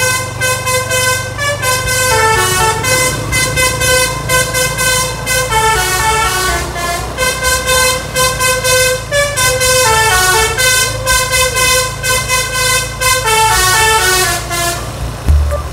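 Basuri telolet multi-tone bus horn playing a fast melody of notes stepping up and down in runs, over a steady low engine hum.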